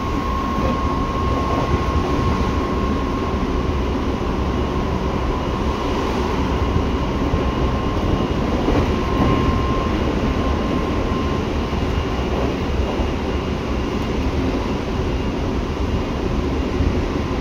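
Seibu 6000 series electric train with Hitachi GTO inverter control, heard from inside the car while it runs along the line: a steady rumble of wheels on rail. Over the rumble is a steady high tone that stops a little over ten seconds in.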